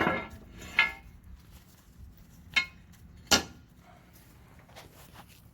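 Metal tools and leaf-spring parts clanking: three sharp metallic knocks with a brief ring, about a second in and twice more near the middle, then only faint handling sounds.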